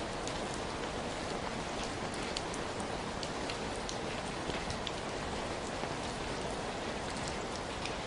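Steady rain falling, an even hiss with scattered sharp patters of drops hitting a hard surface.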